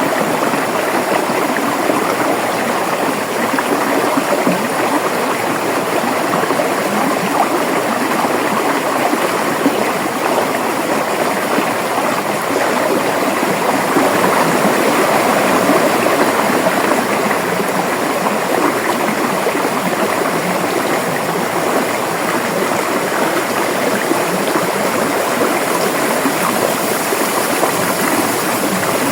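River water flowing and gurgling over rocks, a steady, unbroken rushing.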